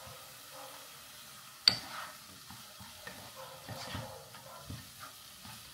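Wooden spoon stirring and scraping fried onions and tomato paste around a pot, over a soft sizzle of frying. One sharp knock a little under two seconds in.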